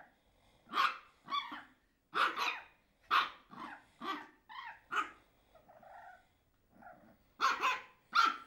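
French bulldog puppy barking in play while tugging and snapping at a toy in a person's hand: a quick, irregular string of about a dozen short, high barks and yaps, with a short lull just after the middle.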